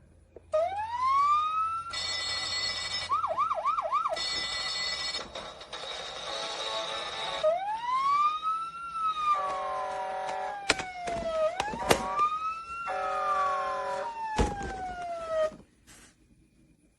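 Electronic siren sound effects from a toy fire station: rising and falling wails, with a quick run of short yelps about three seconds in and bursts of steady electronic tones in between. It stops about a second before the end.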